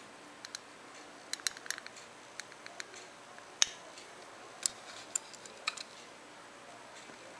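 Small sharp clicks and taps at irregular intervals from die-cast toy Citroën Ami 6 models being handled and set on a hard, glossy tabletop. A quick cluster of clicks comes between about one and two seconds in, and the sharpest click comes just past three and a half seconds.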